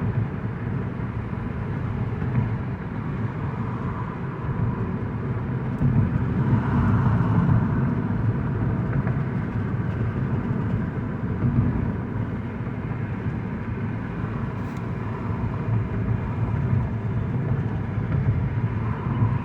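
Inside the cabin of a 2009 Mazda 5 cruising at about 50 mph in fourth gear: a steady low rumble of engine and road noise, swelling a little about six seconds in.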